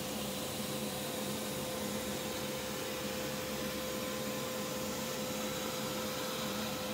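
Woven plastic bag production machinery running steadily: a constant whirring hum with a steady tone and an even, low pulsing beat.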